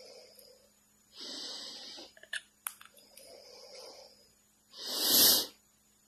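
Cockatiel making a series of breathy hisses, with a few short clicks between them and the loudest hiss about five seconds in.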